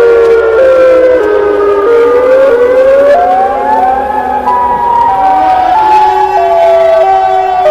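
A siren wailing over a steady held drone. The siren's pitch falls in short steps, climbs in glides around the middle, then steps down again.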